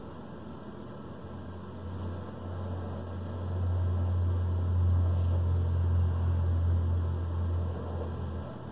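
A low droning hum comes in about a second in, swells, and fades near the end, over a steady faint hiss.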